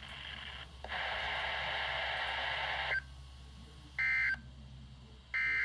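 Emergency Alert System end-of-message data bursts on a NOAA Weather Radio broadcast: after about two seconds of steady hiss come two short, shrill digital warbles a little over a second apart, marking the end of the weekly test message.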